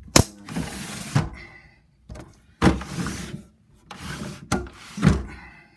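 Sashes of an Andersen Narroline double-hung window being slid up in their jamb tracks: a few scraping slides broken by sharp knocks.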